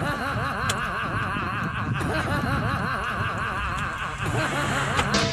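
Comic laughing sound effect: a rapid run of high, repeated giggles, about five a second, that stops about four seconds in.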